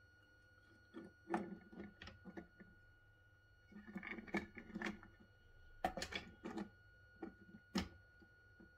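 16 mm scale tipper wagons being handled by hand on the track, giving a scatter of light, irregular clicks and clatters, the sharpest about six seconds in and near the end.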